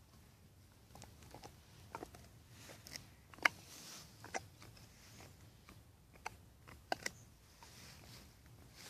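A dog gnawing a bone: irregular sharp cracks and crunches of teeth on bone, the loudest about three and a half seconds in.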